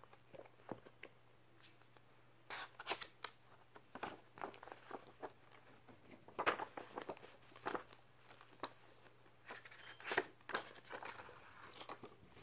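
Paper rustling and scraping as a paperback book and its paper cover are handled and slid about, a string of short, irregular crinkles and scrapes, the strongest between about six and eleven seconds in.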